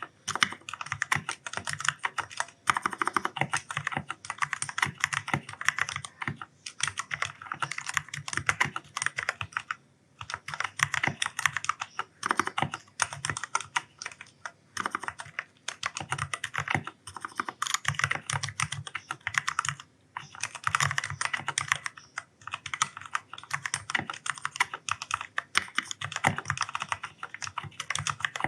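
Steady fast typing on an Ajazz K610T mechanical keyboard with black linear switches: a dense patter of key clicks in runs, broken by brief pauses of under a second every few seconds.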